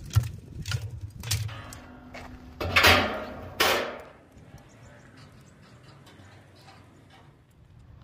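Wood pieces clattering onto lit charcoal inside a steel barrel smoker, with light clicks and knocks. Two louder metal scrapes come about three and four seconds in.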